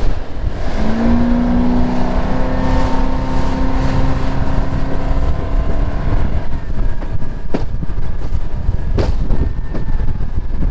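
Bass boat running fast over choppy water, with heavy wind buffeting on the microphone. The outboard motor's tone rises slightly about a second in, holds, then fades out about six seconds in. Two sharp knocks of the hull slapping waves come near the end.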